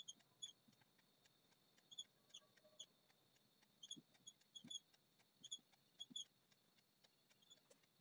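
Faint squeaks of a marker writing on a whiteboard: short high chirps in quick clusters as each figure is written, with a few soft taps of the marker tip.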